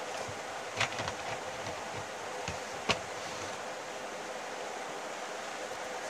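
A few short clicks and knocks of hands handling a DVR unit, the sharpest about three seconds in, over a steady hiss.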